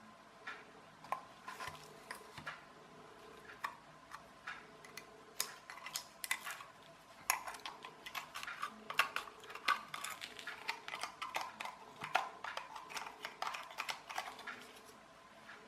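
Handling noise from a small plastic photocell light switch being turned over and examined on a hard surface: a run of light clicks and knocks, sparse at first and much busier in the second half.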